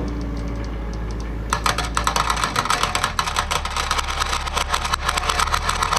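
Marbles clattering down a wooden marble run: a dense, rapid run of clicks starts about a second and a half in and keeps going, over a steady low hum.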